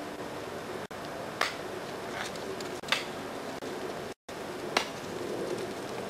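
Ice axes and crampons striking ice: about four short, sharp knocks at irregular intervals over a steady camcorder hiss, with the sound cutting out for an instant a few times.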